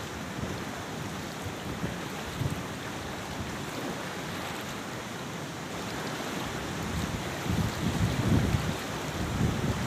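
Steady rushing of a flowing river, with wind buffeting the microphone in low gusty rumbles that grow stronger near the end.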